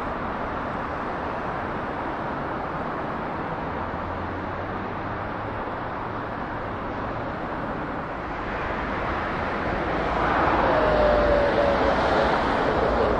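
Cessna Citation Longitude's twin turbofan engines heard as a steady rushing jet noise that swells louder about eight to ten seconds in, with a faint tone that falls slightly near the end.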